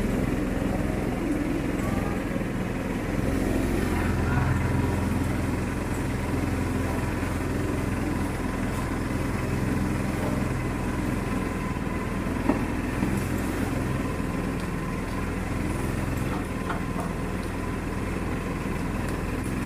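A small engine running steadily with a low, even hum, under faint background voices.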